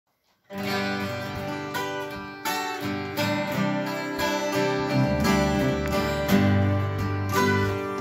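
Several acoustic guitars strumming chords together, starting suddenly about half a second in.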